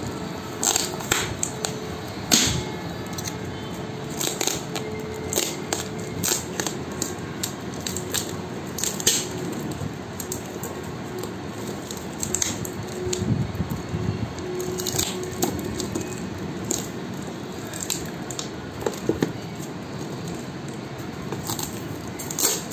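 Brown paper and packing tape on a parcel crinkling, crackling and tearing as it is picked at and pulled open by hand, in irregular sharp snaps over a steady background hum.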